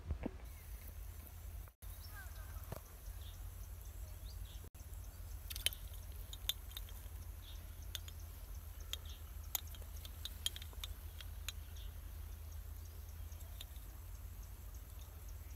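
Quiet pond-side ambience: a steady low rumble with scattered small clicks and faint short chirps, cutting out briefly twice.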